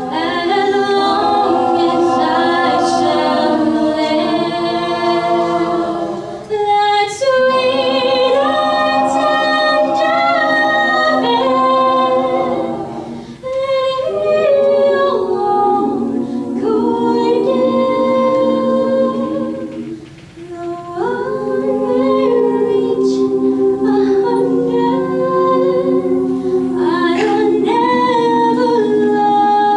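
Mixed a cappella vocal group of young male and female voices singing in harmony into microphones, with no instruments. The chords are held in long phrases, with brief breaks between phrases about every seven seconds.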